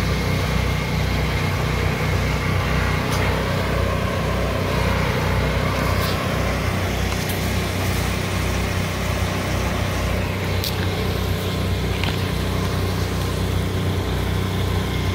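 Small engine of a concrete mixer running at a steady speed, with a few short sharp knocks from the bucket and wet concrete.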